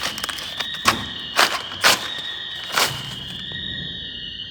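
Store alarm sounding a continuous high-pitched tone that slowly wavers in pitch, with four sharp knocks or clunks over it in the first three seconds, the first one the loudest.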